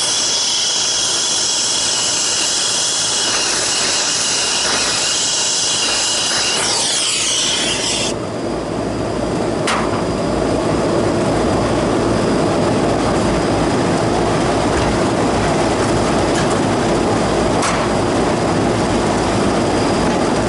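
Brazing torch hissing steadily on the air conditioner's copper refrigerant line, then shut off suddenly about eight seconds in. After that comes a steady lower machine noise with a faint hum and a couple of light clicks.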